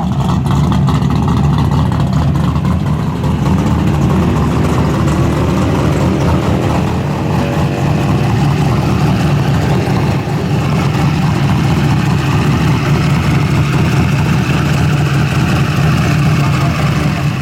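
Muscle car V8 engine running with a loud, deep, steady rumble. Its note climbs in pitch for a few seconds partway through, then settles back.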